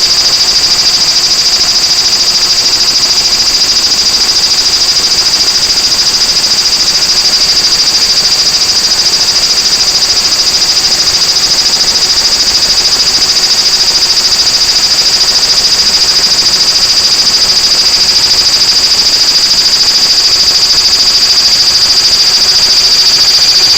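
Large brown cicada (aburazemi) singing: a loud, continuous high buzz held steady without a break.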